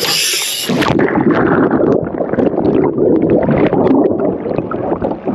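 Water sloshing and gurgling close to the microphone: a dense, continuous churn with many small knocks, after a brief high hiss that cuts off about a second in.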